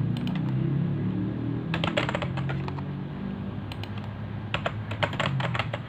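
Typing on a computer keyboard in three short bursts of keystrokes, with a low hum underneath.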